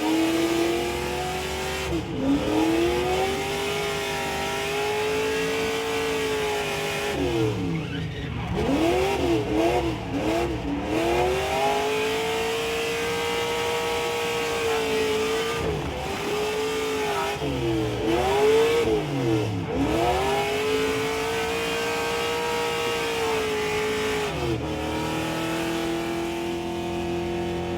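Race car engine at full throttle, heard from inside the cabin: its note climbs and holds through the gears, dropping sharply at upshifts. Twice, about a third of the way in and again past halfway, it falls away in a run of quick downshifts with throttle blips before pulling hard again.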